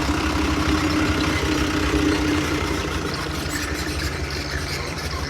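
Heavy vehicle's diesel engine idling steadily, with a low hum that thins out about three seconds in.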